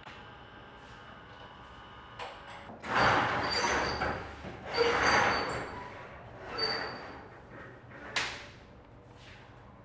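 A wooden slatted roller shutter being hauled up by its strap in several pulls. Each pull is a noisy swell of about a second with a thin squeak on top, and the last near the end is short and sharp.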